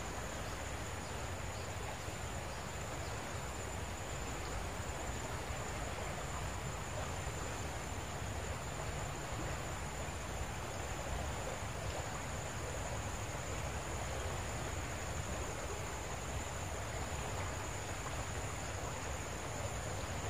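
Steady outdoor ambience: an even rush of background noise with a constant high-pitched insect drone.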